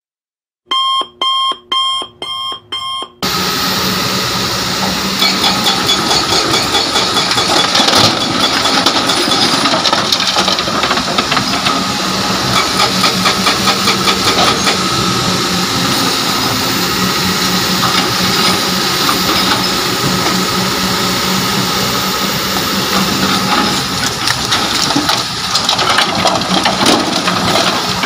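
A short intro jingle of about five quick beeps, then a Kobelco hydraulic excavator's diesel engine running steadily under load, with the clatter and knocks of rock being loaded into a steel dump truck bed.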